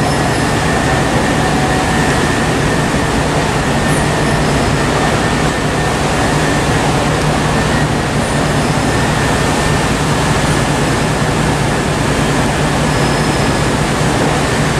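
Steady hum and rush of a Southern passenger multiple-unit train standing at the platform with its onboard equipment running, holding a low droning tone throughout.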